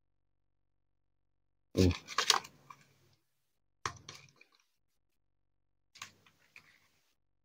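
Fresh coconut-leaf strips rustling and crackling as they are bent and threaded through the weave, in three short bursts, the first and loudest about two seconds in.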